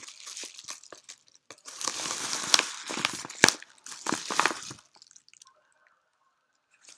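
Yellow padded bubble mailer crinkling and rustling as it is handled and emptied, with sharp crackles mixed in, stopping about five seconds in.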